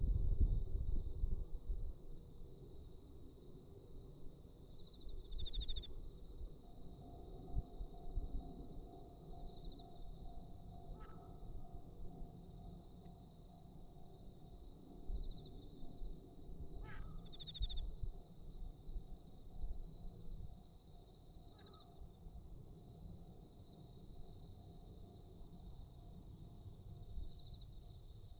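Steady, fast-pulsing drone of an insect chorus with a second, stuttering high-pitched insect above it. A few short bird chirps come several times, over a low outdoor rumble that fades during the first couple of seconds.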